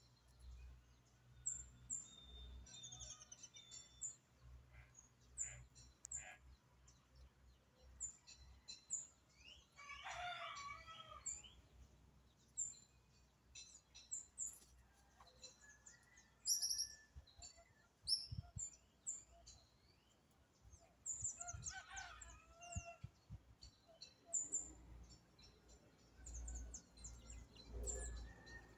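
Birds calling and singing, with many short, high chirps repeating throughout. Two longer, lower calls stand out, one about ten seconds in and one a little past twenty seconds.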